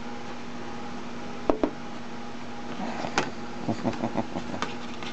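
A 12-inch laserdisc being handled and turned over on a desk: two sharp clicks about a second and a half in, then a run of light taps and knocks, over a steady hum.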